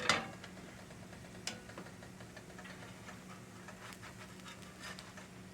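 Potato pancakes frying in a skillet, the oil giving scattered small pops and crackles over a faint steady hum, with a sharp knock at the very start and a single click about a second and a half in.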